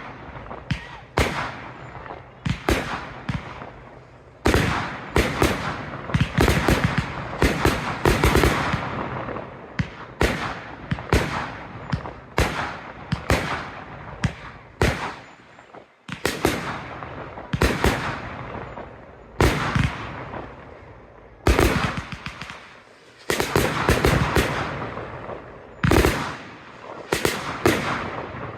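Professional fireworks display: aerial shells bursting in a string of sharp bangs, roughly one a second, with denser volleys in places and two short lulls, about halfway and about three quarters of the way through.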